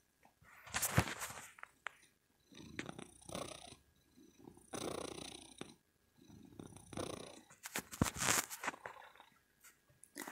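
Domestic cat purring close to the microphone, coming in rounds of about a second with short pauses between breaths. A couple of sharp clicks stand out about a second in and near the end.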